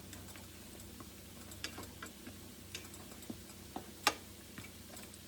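Fried dumplings cooking in hot oil in a pan, with scattered irregular pops and crackles over a steady low hum; the sharpest pop comes about four seconds in.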